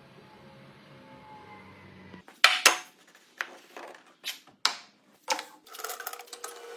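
A series of sharp knocks in a workshop, about eight irregularly spaced hits, the first two a second or so in the loudest, each with a short ring.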